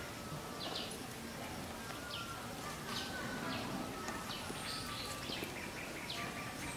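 Outdoor ambience with small birds chirping: short high chirps repeating every second or so over a steady faint hiss, with thin whistled notes in between.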